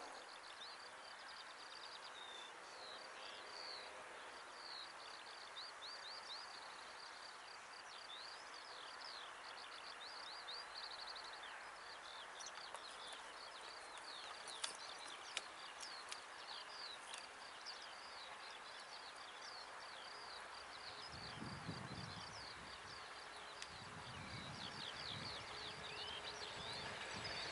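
Birds chirping and trilling in many short repeated calls over faint open-air background. In the last few seconds a faint low rumble comes in from a distant train approaching along the line.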